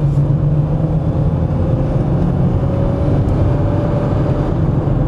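Steady low rumble of a car driving, engine and road noise heard from inside the car, with a faint whine rising slightly in pitch around the middle.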